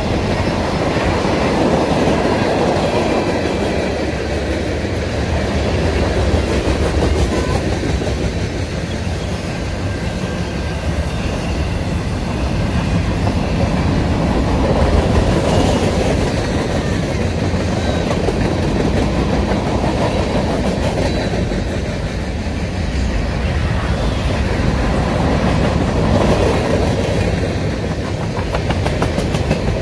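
Covered hopper cars of a long freight train rolling past close by: a steady rumble of steel wheels on rail that swells and fades as the cars go by.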